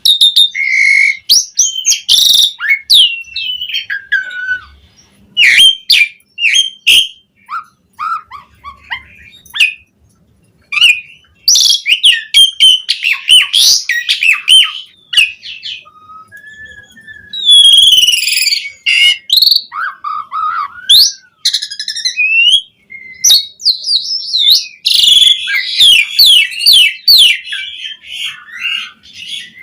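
Javan pied starling (jalak suren) singing a busy, varied song of whistles, chirps, sharp clicks and rising and falling notes, in loud bursts with short pauses between them.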